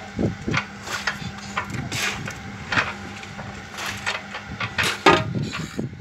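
Construction-site work noise: irregular knocks and clatters of tools and timber over the steady hum of a running machine.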